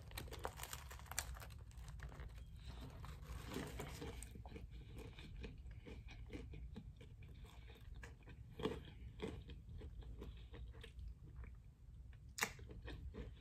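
Faint, crunchy chewing of a bite of crispy fried chicken sandwich, with dense crackles from the breading in the first few seconds, then sparser chews. A sharp click near the end.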